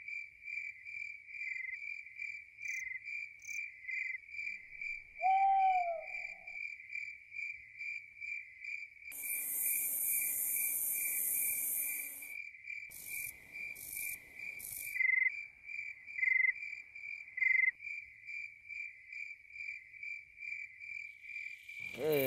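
Crickets chirping in a steady, evenly pulsed night chorus. About five seconds in, a single short hooting call that dips in pitch stands out above them, and a soft hiss comes in for about three seconds near the middle.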